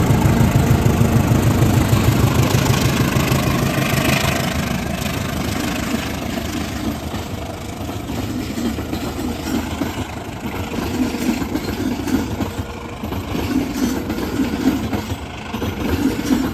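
Diesel railway locomotive engine running with a steady low hum, louder for the first few seconds and then easing off to a lower rumble.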